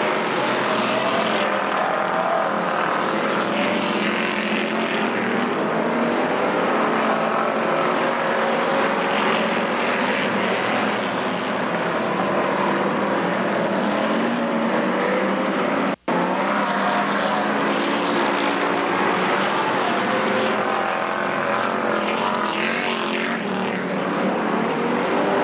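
Pure stock race car engines running as a pack circles a dirt oval, their pitches rising and falling as the cars accelerate and lift through the turns. The sound cuts out for an instant about sixteen seconds in.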